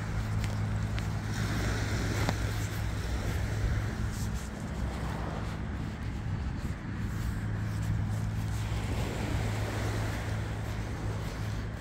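Wind blowing across the microphone: a steady low rumble with a rushing hiss above it, easing slightly partway through.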